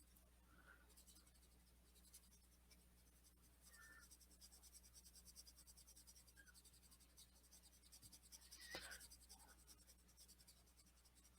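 Faint scratching of an oil-based mechanical colored pencil's lead being stroked on paper, with a slightly louder run of strokes about nine seconds in.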